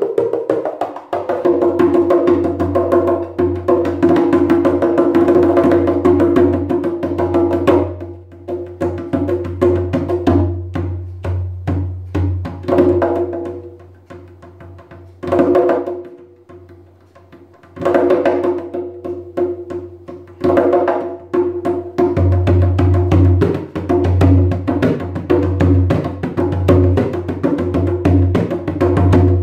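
Ceramic Sombati darbuka with a goat-skin head played with the fingers: fast rolls of sharp strokes over a ringing tone, with deep strokes underneath. The playing drops to soft, sparse taps about a third of the way in, then builds back to full, dense rolls with strong deep strokes near the end.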